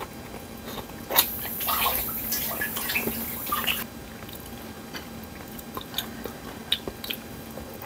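A person chewing a mouthful of boiled pork, close to the microphone. The wet mouth sounds are loudest for a couple of seconds starting about a second in, then give way to a few light clicks of chopsticks against porcelain dishes.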